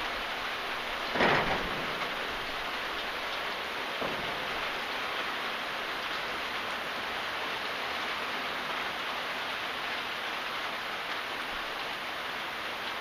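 Steady rain falling, an even hiss of drops, with a brief louder rush of water about a second in.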